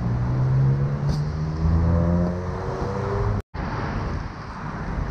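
A road vehicle's engine accelerating on the street, its pitch rising slowly, over general traffic noise. About three and a half seconds in the sound drops out for an instant, then steady traffic noise carries on.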